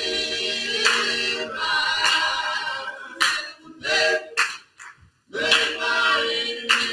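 A small mixed group of voices singing a cappella in harmony, holding long chords, with sharp hand claps now and then.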